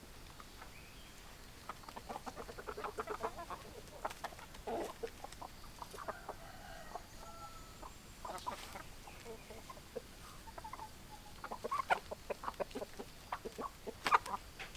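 Domestic hens clucking in runs of short, rapid clucks, with a few brief held notes about halfway through.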